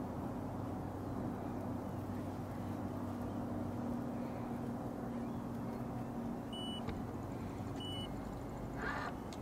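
Steady low hum of a bass boat's electric trolling motor holding the boat along the shoreline. Two short high electronic beeps come about a second apart near the end.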